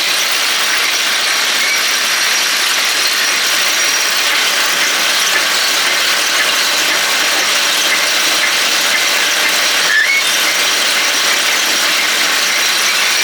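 John Deere 561M round baler's mechanism running, a steady mechanical clatter of chains, rollers and gears. A short squeal comes about ten seconds in.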